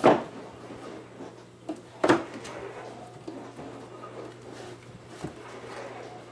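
Books being knocked and set onto a wooden wall shelf: a sharp knock at the start and another about two seconds in, then a few lighter taps. Underneath runs a steady low hum from a dishwasher.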